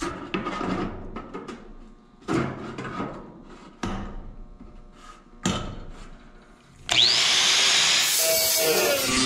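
A few knocks and clatter of steel being handled and clamped, then about seven seconds in an angle grinder with a thin cut-off wheel switches on with a rising whine and runs loud and steady.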